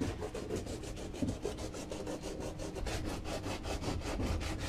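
Wood being sanded by hand: sandpaper rubbed back and forth in quick, even strokes, several a second.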